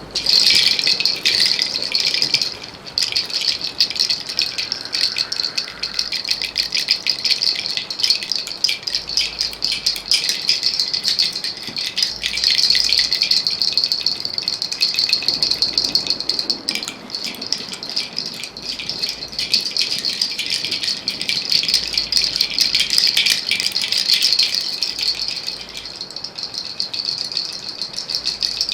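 Hand rattle shaken rapidly and without stopping, making a dense, crisp rattling that eases briefly about three seconds in.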